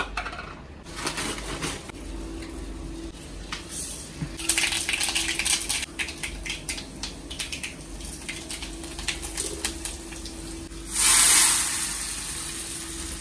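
Cooking sounds at a gas stove: scattered clicks and clinks of utensils and pans over a steady low hum, then a short, loud hiss of sizzling about eleven seconds in.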